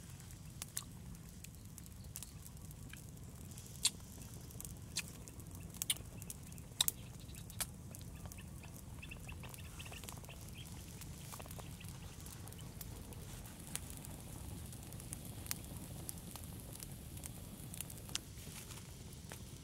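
Open wood fire crackling, with sporadic sharp pops a second or more apart over a faint, steady low rumble.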